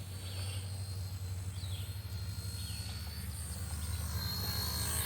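Electric RC helicopter in flight: a steady low drone from the spinning rotor with a thin high motor whine, slowly getting louder. Faint bird chirps over it.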